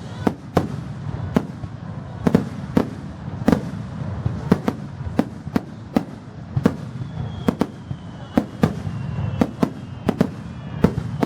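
Fireworks display: aerial shells bursting in a rapid, irregular series of sharp bangs, about two a second, over a low rumble. A thin high whistle slides slowly down in pitch through the second half.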